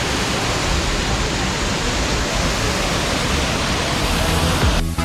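A steady, loud rushing noise with a low rumble underneath. It cuts over to electronic dance music near the end.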